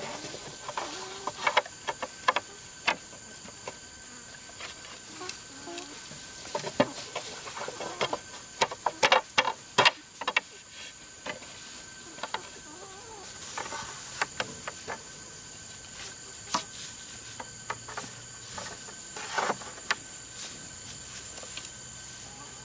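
Bamboo poles and slats knocking and clacking as they are set and pressed onto a bamboo table frame: irregular clusters of sharp knocks, densest about a third of the way in. A chicken clucks in the background.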